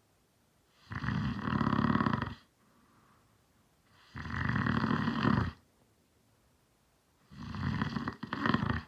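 A man snoring in his sleep: three snores, each about a second and a half long, coming roughly every three seconds.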